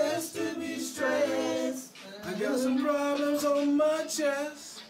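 Men singing a cappella, unaccompanied voices holding long notes, with a wavering vibrato on a held note near the end.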